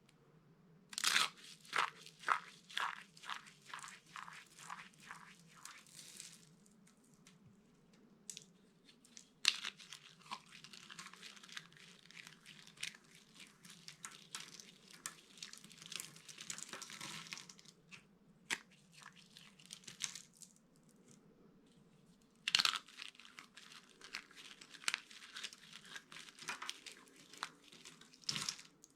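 Dry soap being crushed, crunching and crackling: first a run of separate sharp crunches, about two a second, then longer stretches of dense crackling broken by a few single loud snaps.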